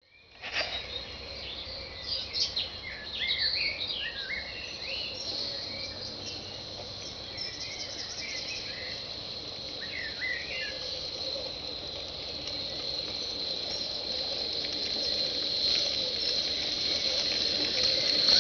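Small birds chirping during the first few seconds, then a 15 mm scale live-steam garden-railway locomotive approaching, its running sound with a steady high note growing gradually louder toward the end.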